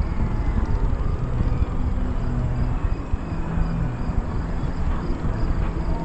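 Wind buffeting the microphone of a camera riding an open chairlift, a steady low rumble. Faint high chirps repeat about twice a second above it.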